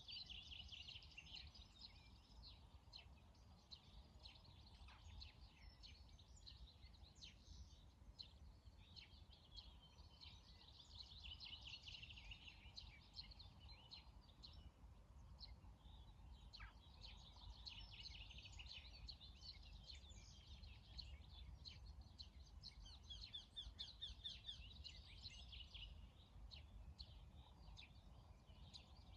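Faint songbirds chirping and trilling in quick phrases that come and go every few seconds, over a steady low rumble.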